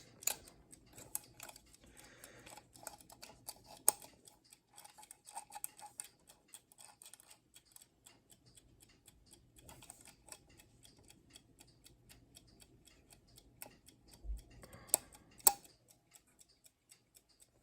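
Mechanical Westclox alarm clock movement ticking steadily with quick, even ticks. A few louder clicks, about four seconds in and twice near the end, come from the clock being handled.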